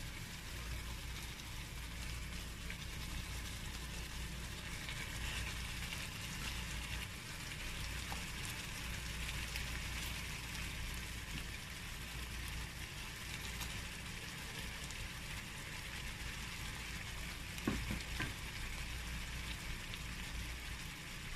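Hot cooking oil sizzling steadily in a karahi around frying chicken pieces and halved tomatoes, with a couple of light knocks near the end.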